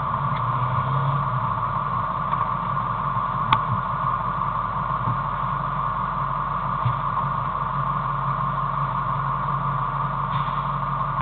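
Fire engine idling steadily while parked, heard from inside its cab, with one short click about three and a half seconds in.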